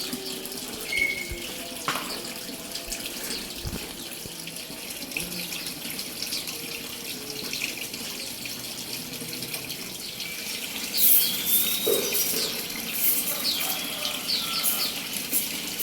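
Steady running water splashing, where birds bathe. From about two-thirds of the way in, small birds, prinias, chirp repeatedly with short high calls.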